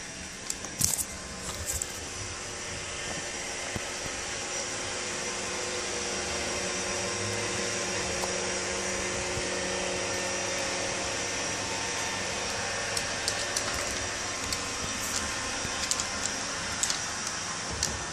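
Steady mechanical whir and hum of a running appliance, growing a little louder toward the middle, with a few light clicks about a second in and again near the end.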